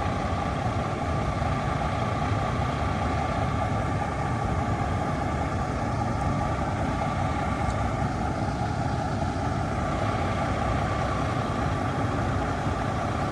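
A vehicle engine running steadily, an unchanging low rumble.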